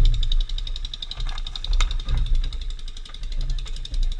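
Wind buffeting the microphone in irregular low rumbling gusts, over a faint steady high-pitched drone, with a couple of light clicks about two seconds in.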